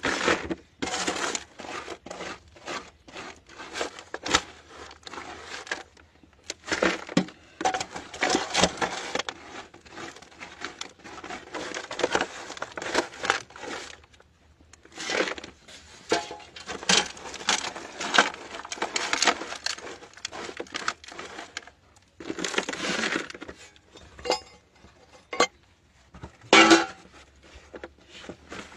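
Dirt and stones being scraped up and scooped into a bucket by hand in a dug pit, in irregular bursts of crunching and scraping with short pauses. A louder knock near the end.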